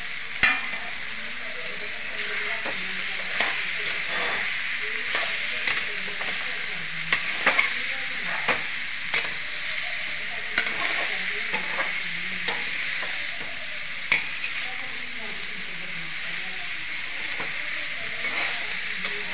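Chopped vegetables frying in a metal kadhai with a steady sizzle. A metal slotted spatula stirs them, scraping and clinking against the pan every second or so.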